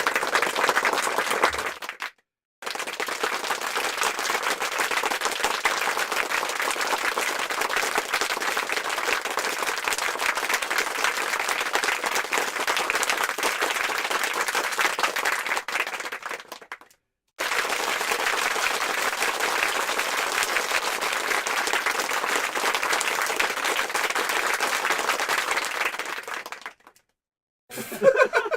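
Crowd applause: three separate stretches of many hands clapping, each breaking off into a brief silence, the first about two seconds in and the second about seventeen seconds in. A short, different sound with a wavering pitch follows near the end.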